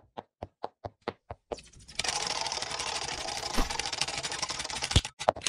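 Sound effects of an animated logo intro: a quick run of clicks at about four a second, then a dense mechanical rattling for about three seconds, ending in a few sharp knocks.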